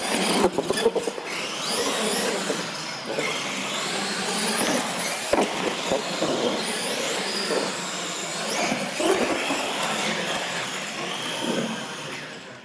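Radio-controlled monster trucks racing on a concrete floor: their motors whine, rising and falling in pitch, over steady tyre noise, with a few sharp knocks. The sound fades near the end as the run finishes.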